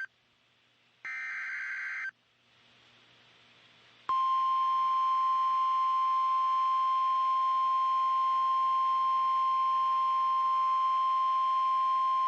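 A one-second burst of NOAA Weather Radio SAME header data tones, then a couple of seconds of faint static. About four seconds in, the steady 1050 Hz Weather Radio warning alarm tone starts and holds, signalling that a warning follows.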